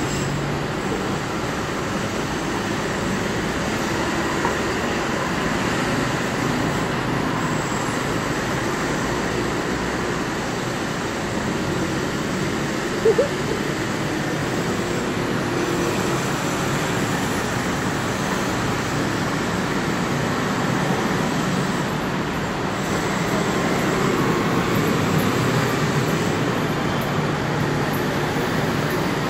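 Steady city street traffic noise from passing cars and buses, with one short sharp sound about halfway through.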